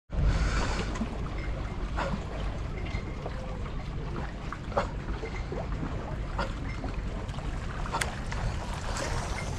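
Wind buffeting the microphone over water lapping against the breakwater rocks, with a few light clicks scattered through it.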